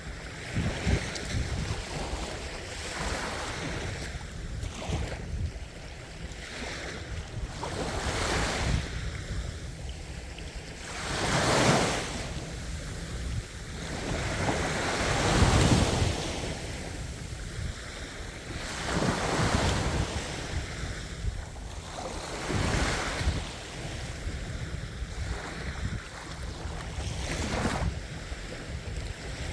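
Ocean waves breaking on the shore. The surf swells and falls away every few seconds, with the biggest waves near the middle.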